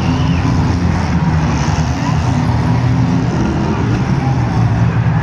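Several demolition derby cars' engines running and revving together, the pitch rising and falling as they manoeuvre, with crowd voices mixed in.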